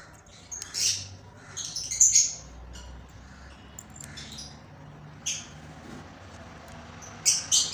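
Small birds chirping in short, high bursts several times, with a faint low hum underneath from about four seconds in.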